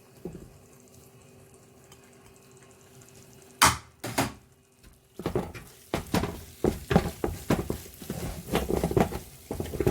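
A spoon knocks sharply twice on a cooking pot, then stirs and scrapes in the pot of egusi soup with a rapid run of clattering knocks. A faint steady hum sits under it at first.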